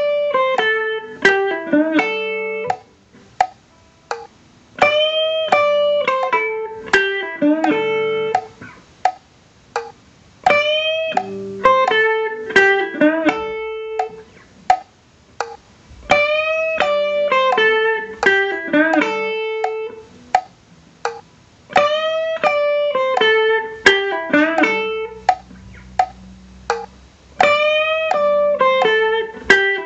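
Electric guitar playing a shuffle exercise: a run of plucked notes repeated as a phrase that comes back about every five to six seconds.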